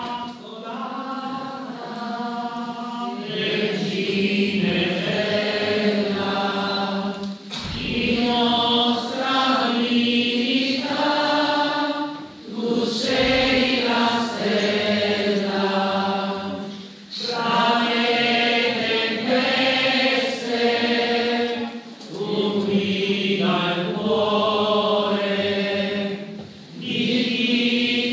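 Several voices singing a hymn together in church, in phrases of about four to five seconds with a short breath between each.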